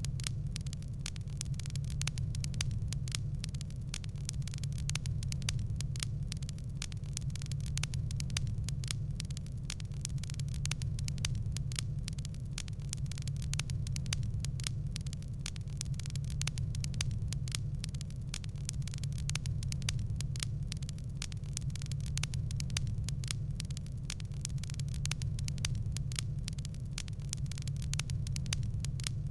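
Wood fire crackling: many small irregular pops and snaps over a steady low rumble of the flames.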